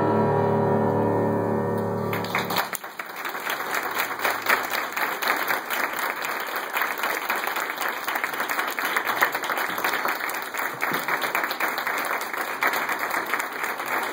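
The song's final held chord on cello and voices stops about two and a half seconds in. Then the audience applauds steadily.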